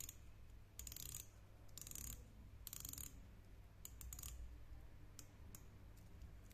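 Unidirectional (anti-reverse) ratcheting bezel of a Casio Duro MDV-10D dive watch being turned by hand: faint, quick clicking in four short runs about a second apart, then two single clicks.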